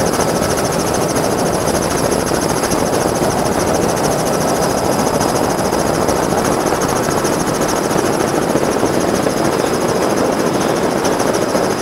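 Vehicle engine running steadily and loudly, starting abruptly out of silence.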